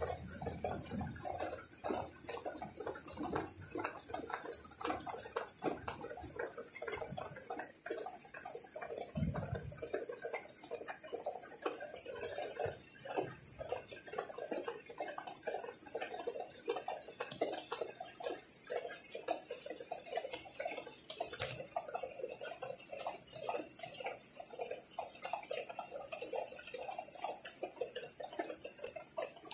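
Rain dripping and pattering onto caladium leaves and plastic plant pots, a dense irregular run of drops. A high steady hiss joins about twelve seconds in, and a single sharp click stands out about twenty-one seconds in.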